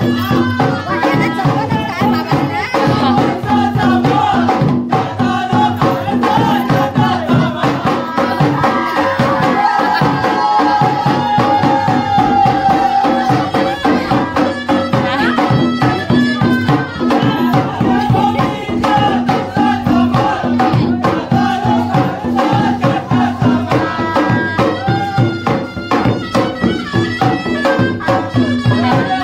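Loud traditional folk music: fast, steady percussion strokes under a sustained, wavering melody line.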